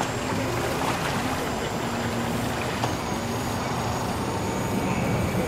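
Bass boat's outboard motor idling steadily as the boat moves slowly through the water.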